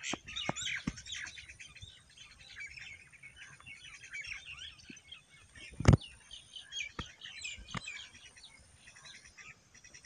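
Many small birds chirping and chattering at once, a dense run of short overlapping calls. A few sharp knocks cut through, the loudest about six seconds in.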